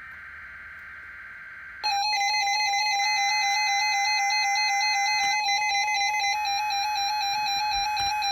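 Weather radio test alert: buzzy bursts of digital SAME header data play three times, and about two seconds in several weather alert radios at high volume set off their alarms together, a loud steady tone with electronic beeps stepping in pitch over it.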